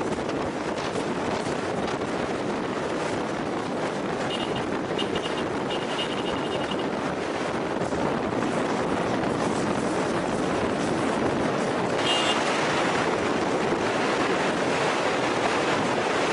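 Vehicles moving at highway speed: a steady rush of wind on the microphone over road and engine noise, growing slightly louder about twelve seconds in.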